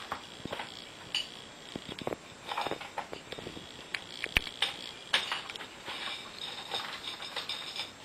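A cat in a plastic recovery cone eating dry kibble from a dish: irregular clicks, scrapes and rattles of the cone and dish against each other and of kibble scattering.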